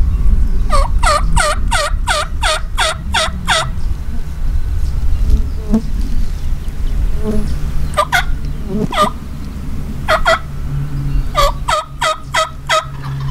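Turkey yelping: a run of about eight quick falling yelps, then a pair and a single, then another run of about six near the end. A steady low rumble lies beneath.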